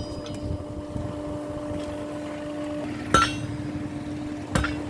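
Two blacksmith's hammer blows on metal at the anvil, about three seconds in and again a second and a half later, each with a short metallic ring, over a steady low hum.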